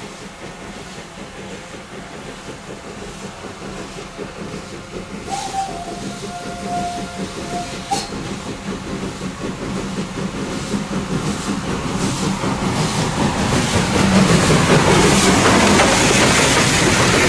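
Mallet steam locomotive approaching and passing close by, its running growing steadily louder. One whistle blast of about two and a half seconds sounds about five seconds in.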